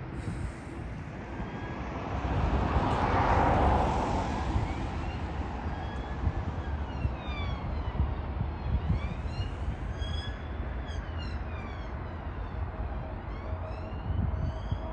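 Jet airliner passing low on approach to land: its engine noise swells to a peak about three seconds in, then whining engine tones slide up and down in pitch. A steady low rumble of wind on the microphone runs underneath.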